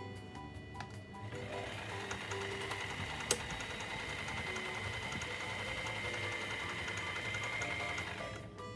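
Brother Select F ZZ3-B556 household sewing machine running steadily for about seven seconds, with a steady whine that rises slightly just before it stops near the end, and one sharp click about three seconds in. Background music plays throughout.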